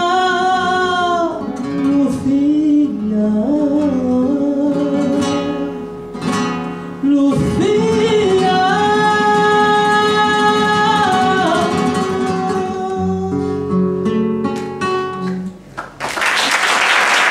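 A man singing the long, held closing notes of a song over classical guitar accompaniment. The song ends on a few guitar chords, and applause breaks out about a second before the end.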